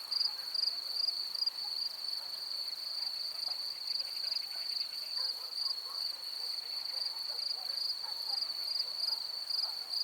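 Field crickets chirping in a continuous high-pitched trill that pulses rapidly and evenly.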